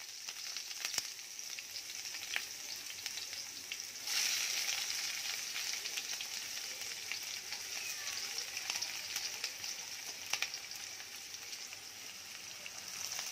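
Chopped onions sizzling in hot oil in a frying pan: a steady frying hiss with a few scattered pops, growing louder about four seconds in.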